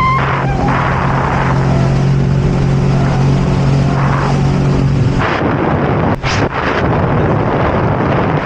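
Jet ski engine running under a rushing of wind and water. About five seconds in, its steady note breaks up into a rougher rush.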